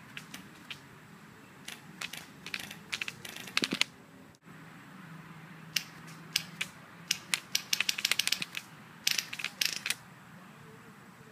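Polar Star HPA airsoft M4 firing through a homemade amplifier muzzle device: sharp single shots and quick strings of shots, with a rapid full-auto burst near the end.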